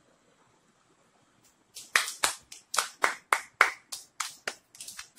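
Hands clapping: a dozen or so sharp, separate claps, about three a second, starting about two seconds in.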